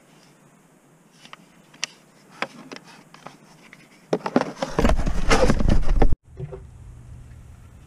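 Plastic laptop power adapters and their cables clicking and knocking as they are rummaged through in a cardboard box, then a loud rustle and scrape of the cardboard flaps being folded shut with handling bumps, which cuts off suddenly.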